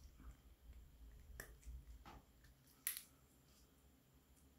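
A few faint clicks as a butterfly knife with steel handles is handled in gloved hands, the sharpest about three seconds in.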